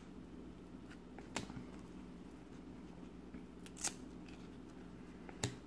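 Trading cards being flipped through by hand, each card slid off the stack with a short sharp swish or snap, three of them standing out, the loudest a little before the end, over a steady low hum.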